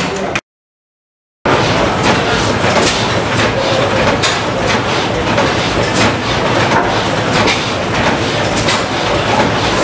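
Large antique stationary gas engine running, with a steady, fast mechanical clatter of clicks and knocks. The sound drops out completely for about a second near the start.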